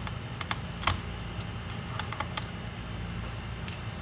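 Scattered light clicks and taps of small tools and parts being handled while a MacBook Pro is taken apart to remove its logic board, the sharpest click about a second in, over a low steady hum.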